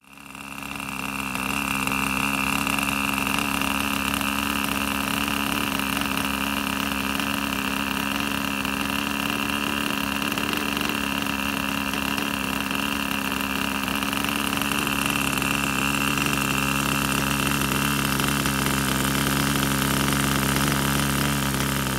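OS Max FP two-stroke glow engine on a radio-control plane running steadily and spinning its propeller, fading in over the first couple of seconds. About two-thirds of the way through, a lower note joins the engine sound.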